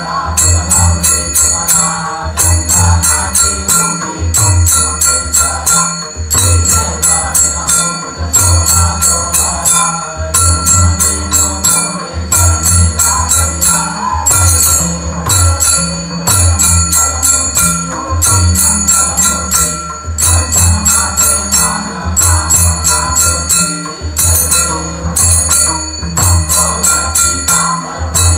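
Temple aarti music: small bells and cymbals jingle in a fast, even beat over a deep drum pattern that repeats about every two seconds, while devotees clap along.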